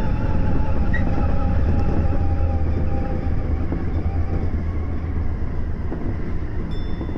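Tokyo Metro 17000 series electric train running, heard from inside its front cab: a steady rumble of the wheels on the rails, with a faint steady whine that fades out about four seconds in.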